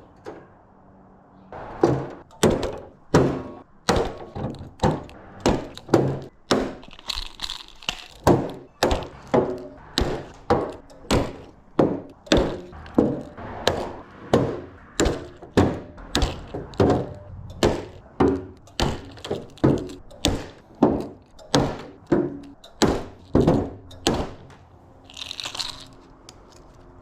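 Hand rivet tool setting blind rivets through the louver panel into the hood, a sharp clack with each squeeze, nearly two a second for about twenty seconds.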